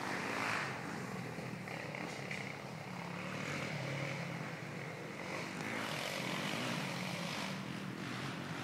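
Single-cylinder four-stroke sport ATV engine running steadily, its pitch shifting up and down a little.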